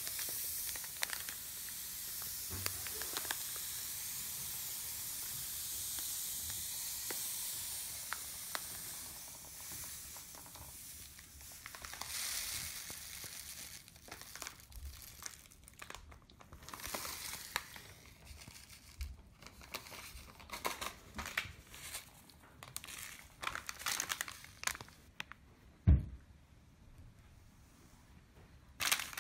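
Amaranth grain pouring from a plastic bag into a wooden mill hopper, a steady hiss for the first ten seconds or so, followed by irregular crinkling of the plastic bag. A single thump about 26 seconds in.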